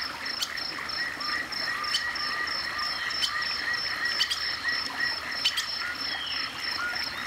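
Nature ambience of small animal calls: a fast, steady high-pitched chirping, with shorter lower calls repeating about twice a second and a few sharp clicks.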